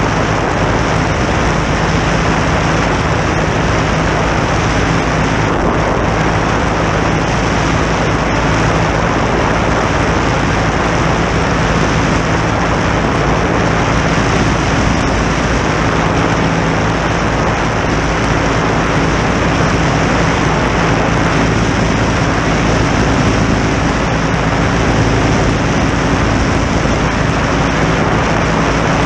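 Legal Eagle ultralight's flat-twin engine and pusher-style propeller running steadily in cruise flight, a constant engine hum under a heavy rush of air.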